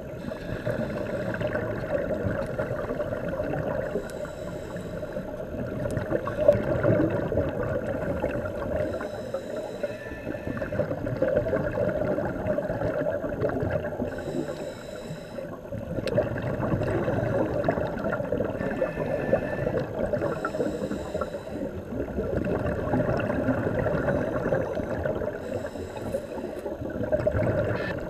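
A scuba diver's regulator breathing heard underwater: a short hissing inhale about every five seconds, each followed by a long gurgling rush of exhaled bubbles.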